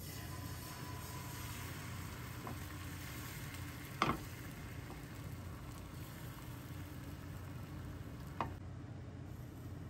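Beaten egg sizzling as it is poured into a hot rectangular rolled-omelette pan, the hiss strongest at first and thinning over the following seconds. Two sharp knocks, a louder one about four seconds in and a lighter one near the end.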